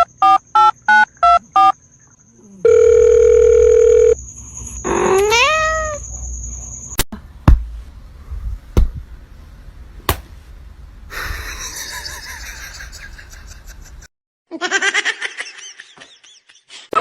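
Telephone keypad tones: a quick run of beeps, then a steady tone lasting about a second and a half. These are followed by a short rising call, a few sharp clicks and some noise.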